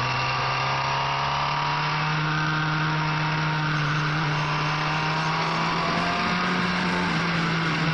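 Motorcycle engine heard onboard, pulling at steady throttle, its note rising slowly and smoothly.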